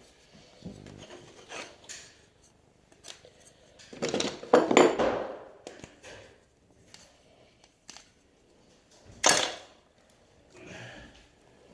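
Small hard objects being handled and knocked together: scattered clicks and knocks, with a longer, louder clatter about four seconds in and a sharp loud one a little after nine seconds.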